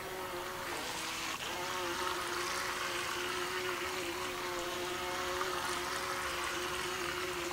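STOTOY remote-control racing boat running in a pool: a steady whine from its electric motor over the hiss of water. The pitch dips briefly about a second in, then holds.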